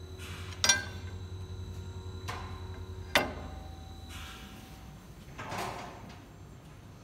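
Steel guillotine blade of an electric paper cutter knocking sharply against the machine twice as it is worked loose and lifted out, with a lighter knock between and sliding metal scrapes afterwards. A steady low hum from the cutter runs underneath and stops about four seconds in.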